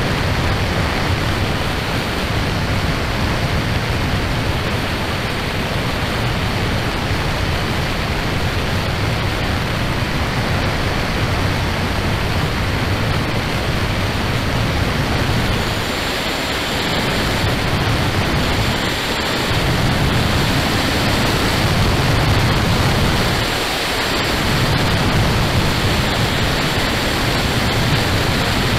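Steady wind rush over the camera microphone of a Kawasaki KLR650 motorcycle riding at speed, with the low drone of the bike underneath. The low end dips briefly a few times in the second half.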